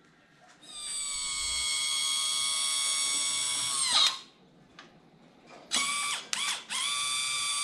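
Electric motor and hydraulic pump of a Yamaha 9.9 hp outboard's power-tilt unit running with a steady whine for about three seconds, dropping in pitch as it stops. It is then switched on in three short blips before running steadily again, tilting the motor on its bracket.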